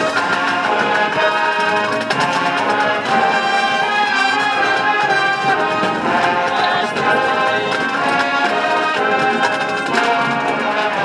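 Marching band playing live, the brass section carrying full chords that move from note to note over the front ensemble's keyboard percussion.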